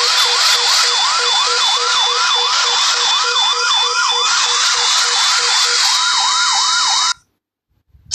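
Ambulance siren in a fast yelp, its pitch sweeping up and down about three times a second over steady tones. It cuts off suddenly about seven seconds in.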